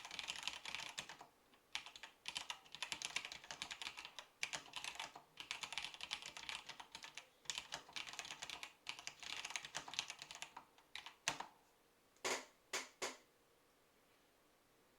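Fast typing on a Datacomp JMC-5151C keyboard with vintage Cherry MX Black linear switches, a dense run of keystrokes in quick bursts. The typing stops about three-quarters of the way through, followed by three louder separate key strokes and then quiet.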